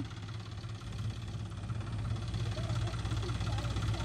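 Diesel engine running at low speed, a steady low hum that grows gradually louder.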